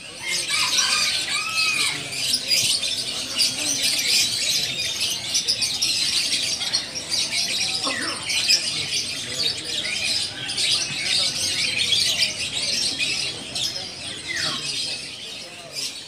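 Many small caged birds chirping and twittering at once, a steady high-pitched jumble of short calls with an occasional louder sliding call.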